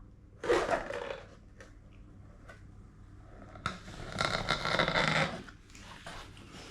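Parcel packaging being opened: a short scrape about half a second in, then a longer rasping tear or cut lasting about a second and a half, the loudest part, in the middle.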